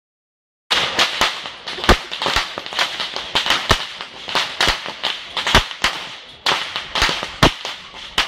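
A long rope whip cracking, as Kandyan perahera whip-crackers do: sharp, loud cracks in quick, irregular succession, starting suddenly under a second in.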